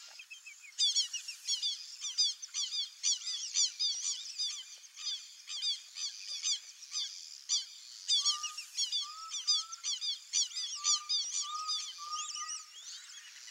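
A flock of whistling ducks calling: many high, squeaky whistles overlapping fast from about a second in. A run of short, lower, clear notes joins them past the middle.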